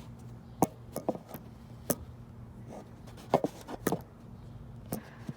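Irregular small clicks and knocks of hands handling an LED turn-signal bulb and its plastic socket, about a dozen sharp taps spread unevenly, over a faint steady low hum.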